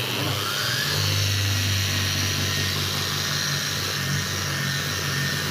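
Milwaukee angle grinder running with a polishing pad pressed on the wet stone countertop, wet-polishing out a surface scratch. A whine rises over the first second, then the tool runs steadily.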